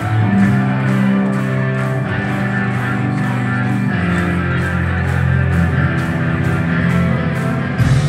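Live rock band playing loud, with distorted electric guitars, bass and drums on a steady beat. The full band comes in at once as the sound begins.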